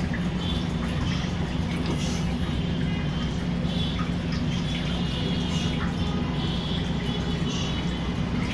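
Steady low machine hum with a faint high whine above it and a few light ticks.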